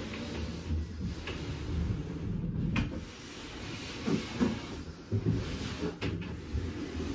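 Upright IKEA PAX wardrobe frame being shuffled across the floor into place: a low, steady scraping rumble with a few short knocks of the board frame.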